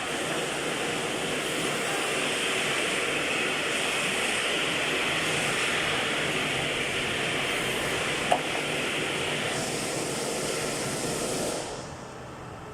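Aerosol electrical contact cleaner spraying in a long, steady hiss that stops shortly before the end, with one small click partway through.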